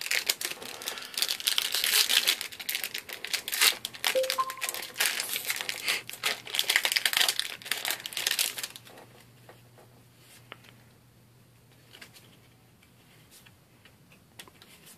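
A foil trading-card booster pack crinkling and tearing as it is worked open by hand for about nine seconds. Then it goes quiet, with only a few soft clicks of cards being handled.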